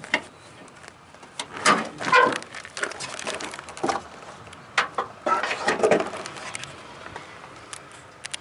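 Irregular footsteps and scuffs of someone walking, with a brief pitched sound about two seconds in. The steps thin out in the last couple of seconds.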